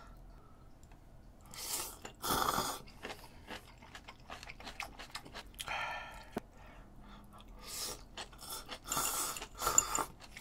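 Close-up eating sounds: instant ramyeon noodles slurped in several short noisy bursts, with chewing and wet mouth clicks between them, and a sip from a small cup near the end.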